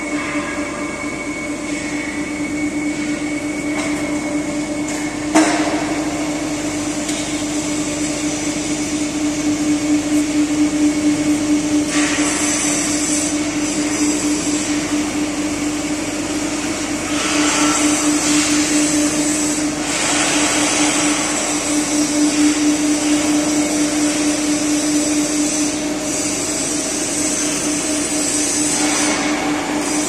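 Hydraulic pump unit of a 400-tonne deep drawing press running with a steady hum, with stretches of louder hiss coming and going. A single knock about five seconds in.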